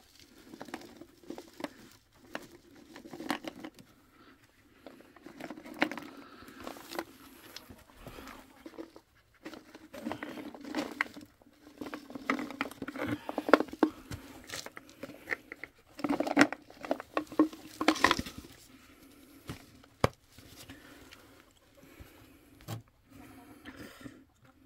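Hard rat-poison tablets rattling in a plastic bottle as it is shaken, dropping out with light clicks and taps onto soil and wire mesh. The clicks come irregularly, the loudest about three-quarters of the way through.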